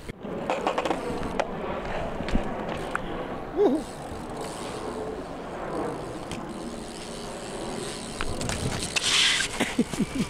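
BMX bike riding on concrete skatepark ramps: tyres rolling with a string of knocks and clatters, the loudest about three and a half seconds in.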